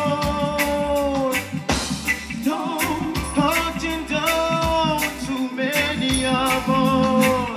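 Reggae song performed live: a singer holding long notes that fall away at the end of each phrase, over bass and drums.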